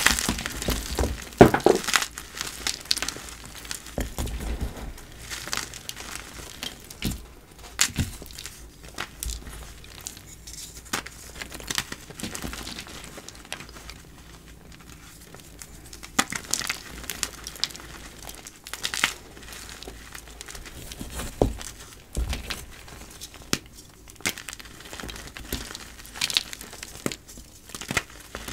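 Blocks of dyed gym chalk being crushed: irregular sharp crunches and snaps over a soft, powdery crumbling, densest in the first couple of seconds.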